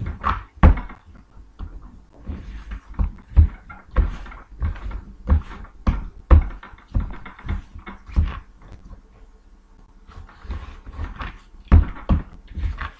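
A ball of soft cookie dough being kneaded and shaped by hand on a tabletop: irregular dull thumps and knocks as it is pressed, folded and turned, with a brief lull about two-thirds of the way through.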